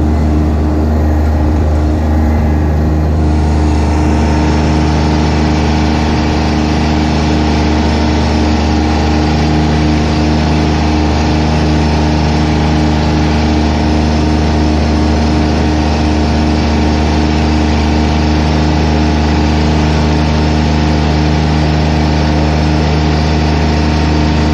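Zero-turn lawn mower's engine running at a steady speed while mowing, an even drone that holds one pitch throughout.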